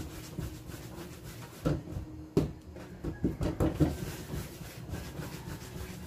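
Hands rolling small balls of bread dough on a stainless steel worktop: soft rubbing, with a few irregular light knocks as the hands and dough hit the metal table.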